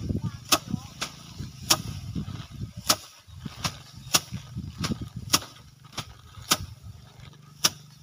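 Bundles of cut rice stalks beaten by hand against wooden slatted threshing racks to knock the grain loose. There are sharp whacks about once a second at uneven intervals, from two workers striking in turn.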